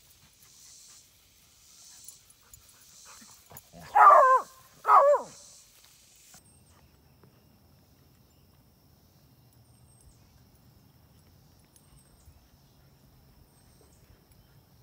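A dog barks twice, about a second apart, each bark short and loud with its pitch falling, amid rough play between dogs and puppies. The rest is faint outdoor background.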